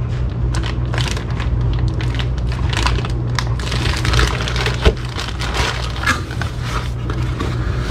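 Clear plastic bag crinkling and rustling as a bagged metal part is handled in a cardboard box, with a single knock about five seconds in. A steady low hum runs underneath.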